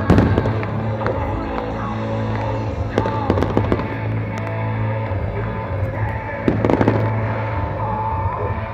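Fireworks going off in three clusters of sharp bangs and crackles: one at the start, one about three seconds in, and one around six and a half seconds in. Music plays steadily underneath throughout.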